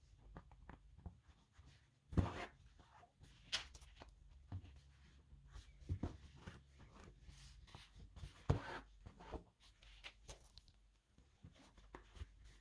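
Thread being pulled through the stitching holes of leather during hand saddle stitching: scattered soft rasps and rustles of thread and leather being handled, the two loudest pulls about two seconds in and at about eight and a half seconds.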